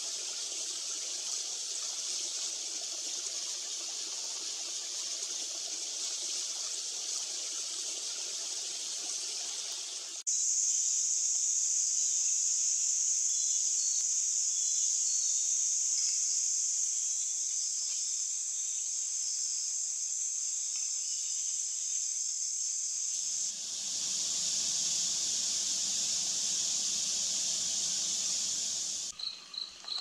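Outdoor nature ambience that changes abruptly with each shot. First comes a steady hiss; about ten seconds in it switches to a loud, steady, high-pitched insect drone; near the end a fuller rushing noise takes over. It breaks off just before the end, with a few short high chirps.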